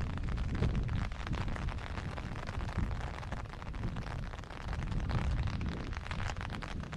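Rain falling, heard as a dense patter of small drop ticks over a steady low rumble.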